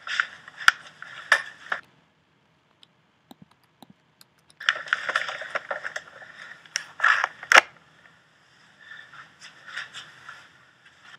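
Choppy, stop-start bursts of noisy audio with a few sharp knocks, as video footage is scrubbed back and forth in an editor. The bursts come in three spells, with a pause of about two seconds after the first.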